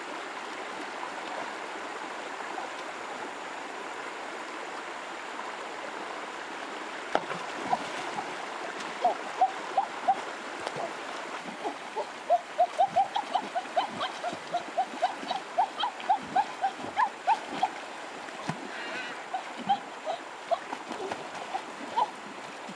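Shallow river flowing steadily over stones; from about seven seconds in, rapid repeated splashing and plopping as a large fish thrashes and is grabbed at by hand in the shallows.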